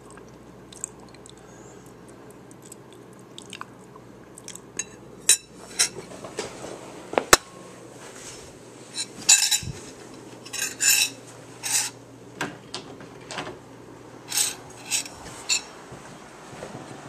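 An eating utensil clinking and scraping against a dish in short, sudden strokes. They come more often after the first few seconds, and the sharpest is a single click about seven seconds in.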